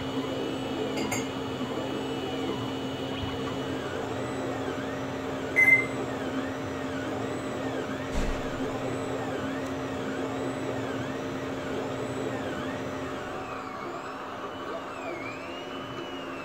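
3D printer at work: a steady mechanical hum with a whine that rises and falls about once a second as the print head moves. A brief louder chirp comes about five and a half seconds in, and a short dull knock about eight seconds in.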